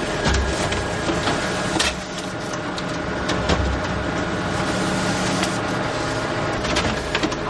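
Photocopier running steadily, with a continuous mechanical hum and repeated clicks and low thumps from its paper-handling mechanism.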